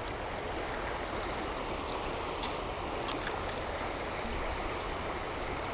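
Steady rushing of a fast-flowing river, with a couple of faint ticks near the middle.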